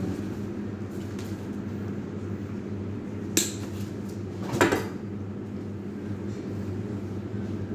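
Two sharp snips about a second apart, a little past the middle, from hand wire cutters cutting through wired artificial flower stems. A steady low hum runs underneath.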